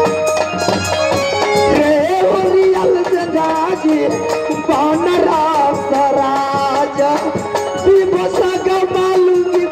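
Live folk music from a stage band with drums and rattling percussion. A steady held chord gives way about two seconds in to a wavering, ornamented melody that sustains long notes.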